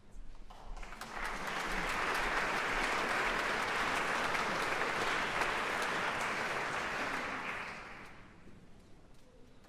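Audience applauding, swelling up over the first second and dying away about eight seconds in.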